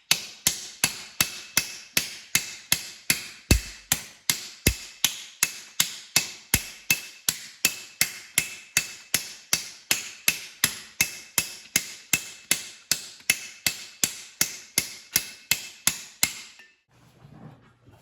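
Hammer striking metal in a steady, even rhythm, about two and a half blows a second, each with a short ringing note. The hammering stops near the end.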